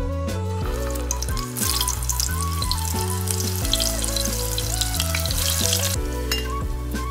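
Sausages sizzling in hot oil in a frying pan, starting about a second and a half in and cutting off suddenly about six seconds in. Background music plays throughout.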